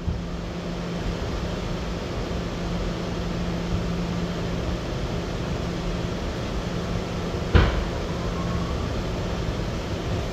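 Steady hum of an R211A subway car's ventilation and onboard equipment, with a low steady drone, while the car sits at a station. About seven and a half seconds in comes one sharp, loud clunk.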